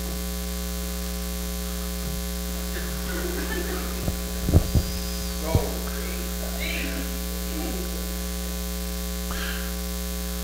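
Steady electrical mains hum, with faint voices in the background and a few short low thumps between about four and five and a half seconds in.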